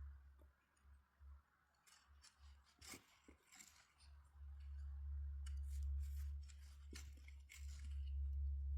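Faint, scattered clicks and scrapes of hands-on handling work, over a low rumble that drops away about half a second in and returns about four seconds in.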